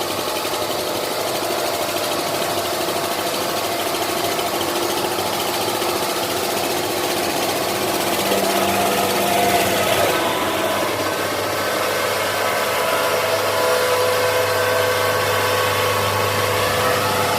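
Diesel engine of heavy machinery running steadily, with a brief small rise about nine seconds in.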